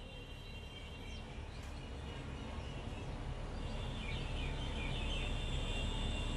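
Steady low background noise that grows slowly louder, with faint bird chirps about four seconds in.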